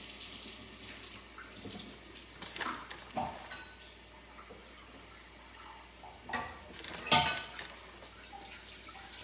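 Kitchen cooking sounds: a steady hiss from the stovetop with scattered clicks, clinks and rustles as a plastic food packet is handled over a frying pan. The loudest click comes about seven seconds in.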